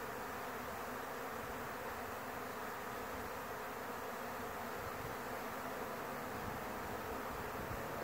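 Swarm of honey bees leaving the hive: a steady, dense buzzing of thousands of bees in the air, with no break or change.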